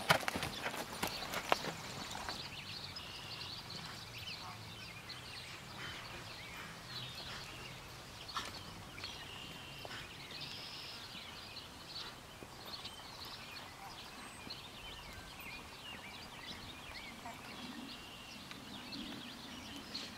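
Horse's hoofbeats on arena dirt, loud and sharp for the first second or so as it gallops past, then fading to faint distant footfalls. Birds chirp in the background throughout.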